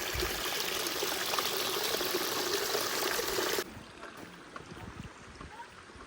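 Rushing stream water, loud and steady, cutting off abruptly about three and a half seconds in and leaving a much quieter background with a few faint clicks.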